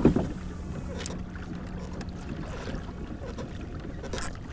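Light wind rumble on the microphone and water moving against a plastic kayak hull, with a few faint clicks.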